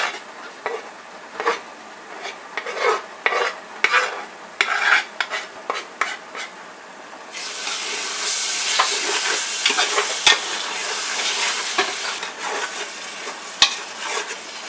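A wooden board taps and scrapes against the rim of a pot as chopped coriander leaves are pushed in. About seven seconds in, frying masala starts sizzling steadily while a metal spoon stirs it, clinking and scraping against the pot.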